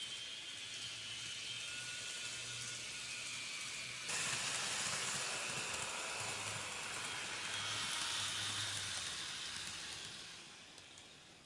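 N-gauge model train running on the track, a steady hissing rumble of wheels and motor that jumps louder about four seconds in, then fades as the Keihan 1000-series express model slows to a stop near the end.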